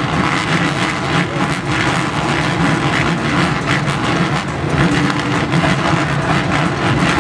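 A full field of motocross bikes running together at the start gate, their engines revving unevenly in a dense, continuous mix while the riders wait for the gate to drop.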